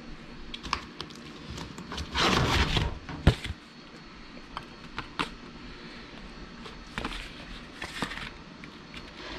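A metal cookie cutter scraping and clicking against baked cookies and a parchment-lined sheet pan, with paper-plate handling. There is a louder scraping stretch about two seconds in, a sharp click just after three seconds, then lighter taps and clicks.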